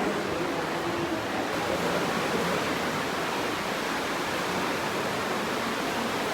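The River Aare rushing through its gorge: a steady, even noise of fast-flowing water.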